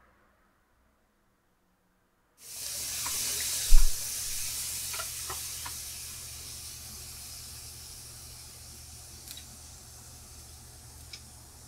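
Turban shells sizzling as they cook: a hiss that starts suddenly about two and a half seconds in and slowly dies down, with a few small pops. A single sharp knock comes just after the sizzling starts.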